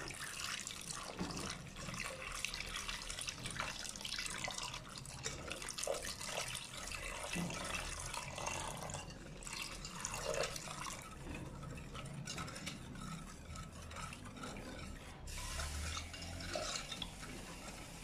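Wire whisk stirring a thin liquid in a stainless steel pot: cold water being whisked into custard powder, milk powder and sugar. It makes irregular sloshing and scraping with light clicks of the wires against the pot.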